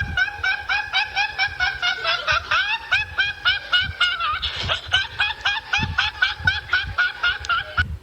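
High-pitched, cartoonish snickering laugh used as a meme sound effect: a rapid, rhythmic run of short 'hee-hee' syllables, about four or five a second, that cuts off suddenly near the end.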